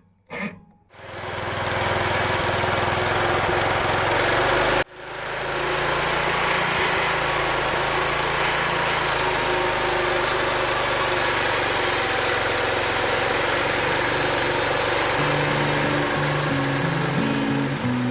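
The 11-horsepower engine of a homebuilt bandsaw mill running steadily while the band blade cuts a thick slab from a large pine log. Background music comes in near the end.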